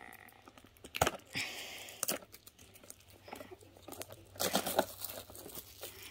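Plastic shrink wrap being torn and crinkled off a DVD box set by hand. It comes in separate crackling bursts: a sharp tear about a second in, more crinkling just after, and a louder spell of crinkling about four and a half seconds in.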